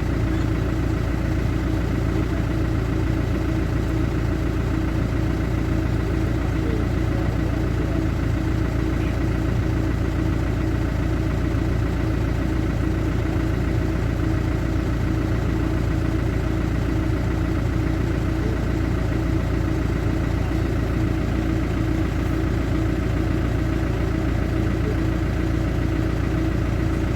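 A vehicle engine idling steadily, with an even low rumble and a constant hum that holds the same pitch throughout.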